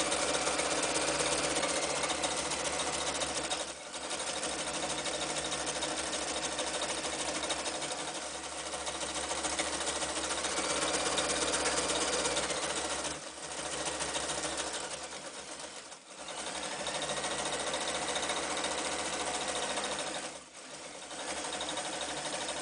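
Janome New Home 552 electric sewing machine stitching a zigzag seam through fabric, the motor and needle mechanism running steadily. It briefly slows or pauses a few times, at about four, thirteen, sixteen and twenty seconds in, then speeds back up.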